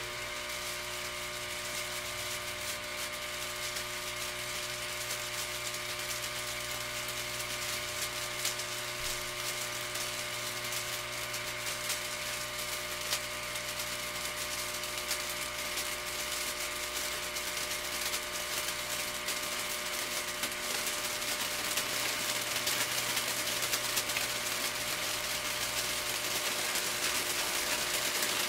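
Storz & Bickel Volcano Classic vaporizer's air pump clicks on, then runs with a steady electric hum and airy hiss as it blows heated air into the balloon bag. It grows slightly louder over the last several seconds.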